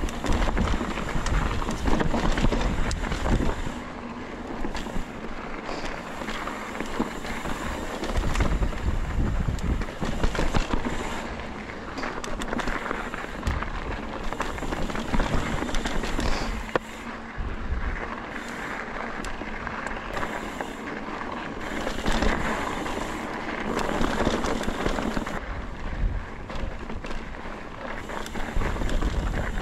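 Ibis Ripley mountain bike rolling fast over loose rocky singletrack: tyres crunching and crackling on gravel and stones, with rattling from the bike and gusts of wind rumbling on the microphone.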